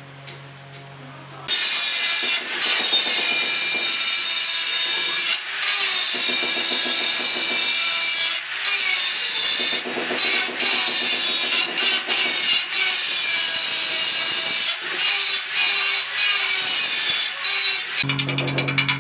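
Handheld angle grinder cutting through a ceramic tile: a harsh, high grinding hiss starts about a second and a half in and keeps going, broken by several short dips as the blade eases off the cut.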